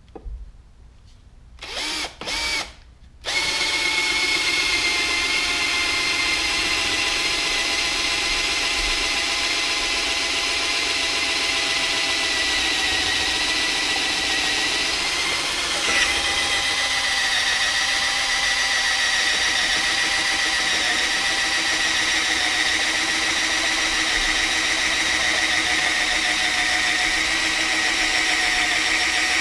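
Electric drill boring a hole down through a wall's wooden bottom plate for a cable run: two short trigger blips, then a long continuous run at steady speed with a high whine. A single click about 16 seconds in.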